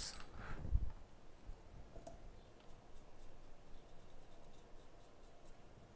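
Faint scratching and light clicks of small hand tools working on a phone circuit board while it is being cleaned, with a dull thump just under a second in.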